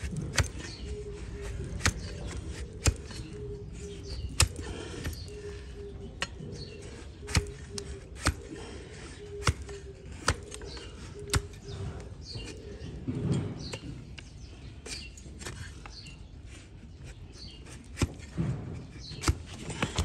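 Donkey hoof being pared with a broad flat steel hoof-trimming blade: a series of crisp cutting clicks as slivers of horn shear off, irregularly spaced at roughly one a second.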